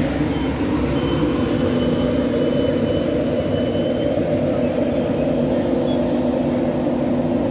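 An LNER Intercity 225 train, hauled by a Class 91 electric locomotive with Mark 4 coaches, rolling slowly past the platform. It makes a steady rumble and hum, with faint thin squeals from the wheels in the first few seconds.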